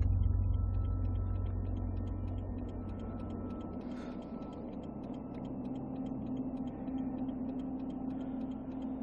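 Tense film underscore: a deep boom that fades away over the first few seconds, under a sustained low drone with quick, irregular ticking like a clock.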